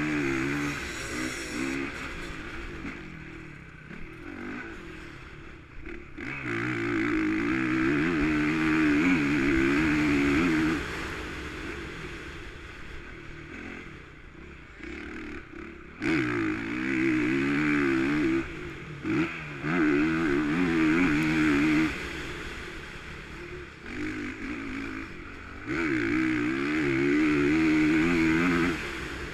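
Motocross bike engine ridden hard on a sand track: three long stretches of full-throttle revving, each several seconds long, with the engine backing off to a quieter, uneven note between them.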